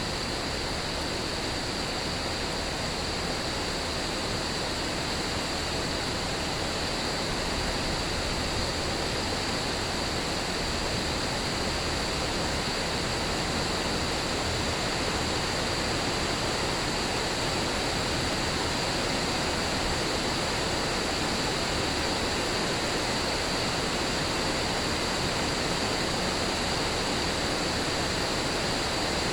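Steady rain, an even unbroken hiss with no thunder, with a continuous high-pitched cricket chorus over it.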